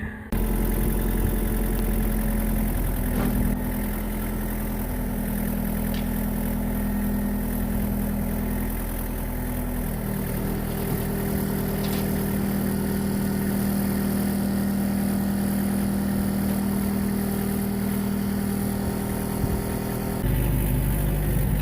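Excavator engine running steadily, its speed stepping up or down a few times.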